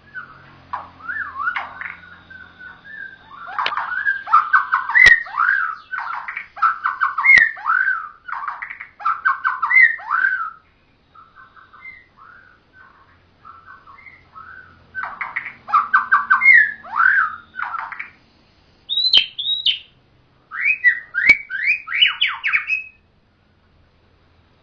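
Songbird singing in bursts of rapid, varied whistled and chattering notes. The song breaks off for pauses about halfway through and again near the end, and a few sharp clicks sound between the phrases.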